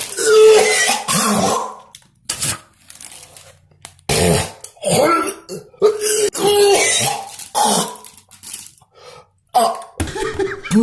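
A man's deliberate coughing fit: several bouts of hacking coughs and throat clearing with short pauses between. It is a chesty flu cough, forced to bring up mucus.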